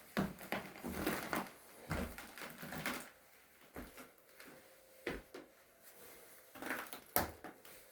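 Irregular small knocks, clicks and scuffs in a small room, dense for the first three seconds, then scattered, with one sharp click near the end: someone moving about and handling things.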